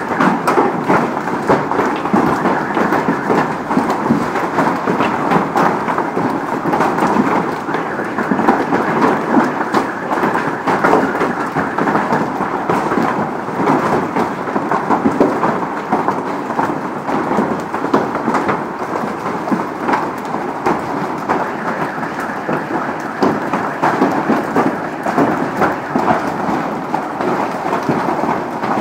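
Hailstorm: hailstones pelting down on the street and the cars parked along it, a loud, steady clatter of countless small impacts.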